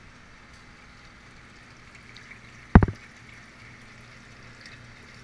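A handheld camera plunging into an aquaponics fish tank: one short, loud splash-knock just past halfway, over a steady faint hiss of running water and a low hum.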